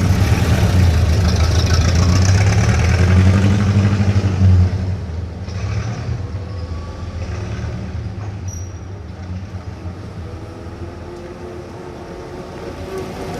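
1940s-era suburban street traffic. A vehicle's engine rumbles loudly close by for about the first four and a half seconds, then drops away to a quieter steady wash of passing traffic.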